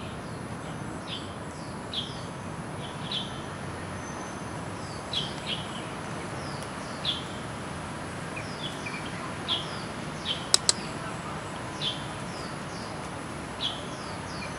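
Small birds chirping: short, high, downward-sweeping chirps, one every second or so, over a steady outdoor hiss. Two sharp clicks come close together about ten and a half seconds in.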